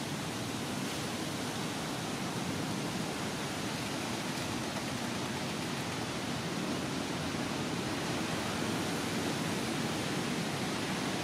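Steady, even hiss of noise with no distinct sounds in it.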